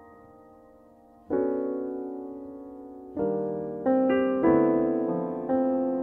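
Slow, gentle piano music: a chord fades out, then fresh chords are struck about a second in and every second or so after, each ringing and dying away.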